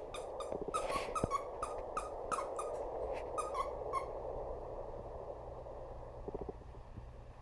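Squeaky plush lamb toy squeaking in quick, short squeaks, about three or four a second, as a puppy chews it; the squeaking stops about four seconds in.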